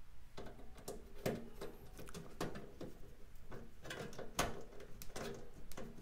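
Small screws being driven by hand with a screwdriver into a PC motherboard's standoffs: irregular light clicks and taps of the screwdriver and screws against the board and the metal case.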